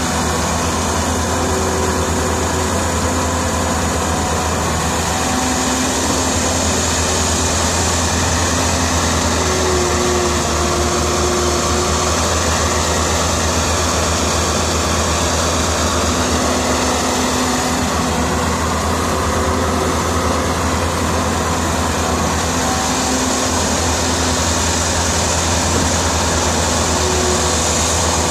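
Caterpillar E120B excavator's diesel engine running steadily under load as it digs and swings, with the engine's low drone and faint whining tones that shift now and then.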